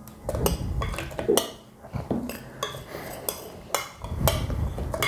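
A spoon scraping and knocking against a glass bowl as bread is spooned out of it into a blender jar: irregular clinks and short scrapes.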